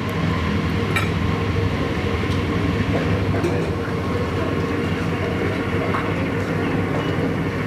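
Steady mechanical hum with a rumbling undertone and a few faint clicks.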